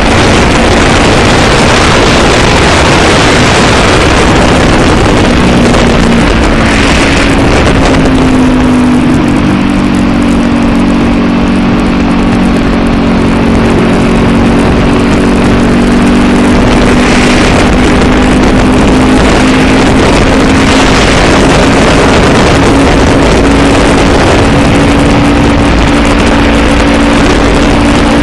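Honda CB500F's parallel-twin engine running under way, nearly buried in heavy wind rush on the microphone. The engine note sinks a little about seven seconds in, then climbs slowly again.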